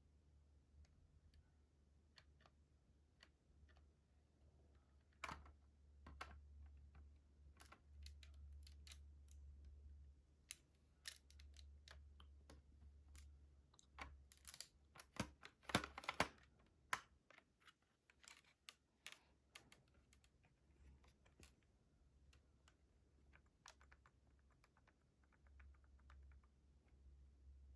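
Faint, irregular light clicks and clatter of Lego plastic pieces being handled, with a denser, louder run of clicks about halfway through, over a low steady hum.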